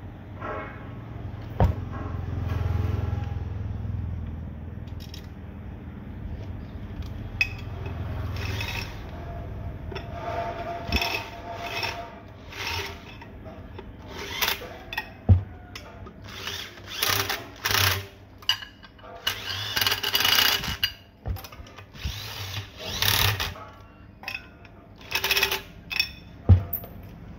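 Electric drill with a long extension shaft, run on a 1 hp monoblock water pump in about a dozen short bursts of half a second to a second each, mostly in the second half. A low rumble comes before them.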